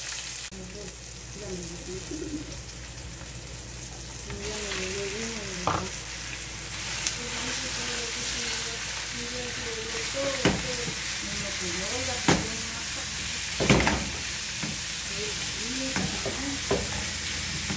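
Chopped onion, green pepper and tomato, then ground beef, sizzling steadily in oil in a nonstick frying pan. A spatula stirs and knocks against the pan several times in the second half.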